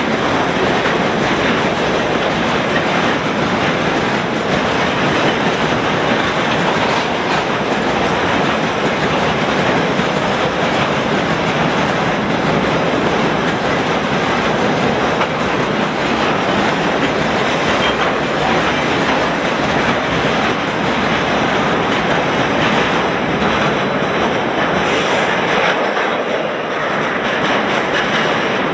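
Freight train wagons rolling past at speed: a steady, loud rush of wheels on rail with clickety-clack.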